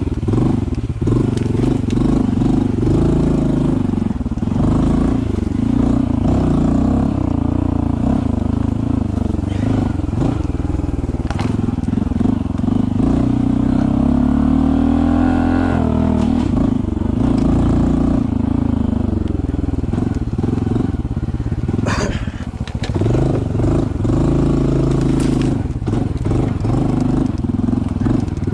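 Honda CT125 Hunter Cub's 125 cc single-cylinder four-stroke engine running at low trail speed, the revs rising and falling, with a climb in revs about halfway through. A few sharp knocks sound over it, about eleven and twenty-two seconds in.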